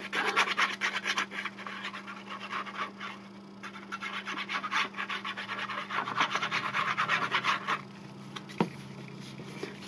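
Glue applicator being run across paper: quick scratchy rubbing strokes in two spells, with a short break about three seconds in, dying away about eight seconds in.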